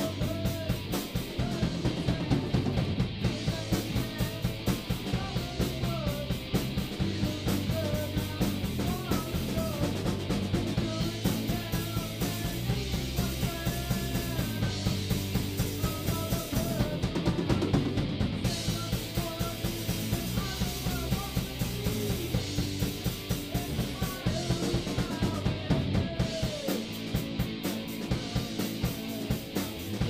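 A live rock band plays: electric guitars, bass guitar and a drum kit. Near the end the bass and guitar part changes.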